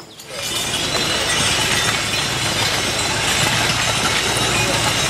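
A motor vehicle's engine running steadily under a dense, continuous rattling clatter, starting abruptly just after the start.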